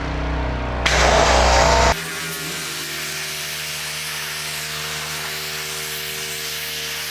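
Gas-engine pressure washer running, with a louder spray hiss for about a second from the wand. About two seconds in, the low rumble cuts off abruptly and a steady hiss with a hum carries on.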